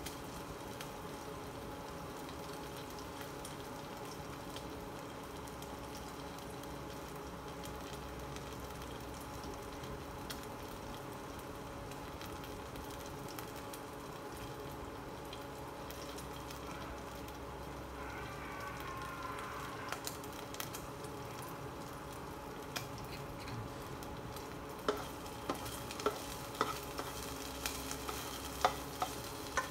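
Chopped red onion and garlic frying in oil in a nonstick pan: a steady, gentle sizzle over a low steady hum. In the last few seconds a plastic spatula stirs them, clicking repeatedly against the pan.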